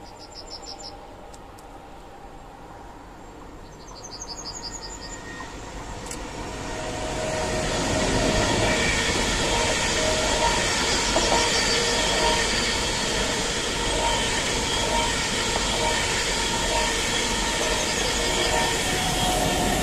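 ICE high-speed electric train approaching and passing at speed: a rush of wheel-and-rail noise that builds from about six seconds in and stays loud as the long train runs by.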